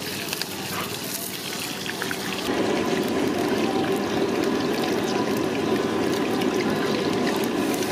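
Hot oil sizzling and bubbling in a large iron wok over a gas burner, growing louder about two and a half seconds in and then holding steady, with a few light clicks of a steel ladle before that.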